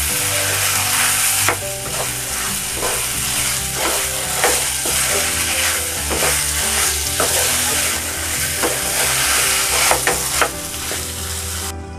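Soya chaap and green peas sizzling in a steel pan while a wooden spatula stirs them, with repeated short scrapes of the spatula against the pan over a steady frying hiss.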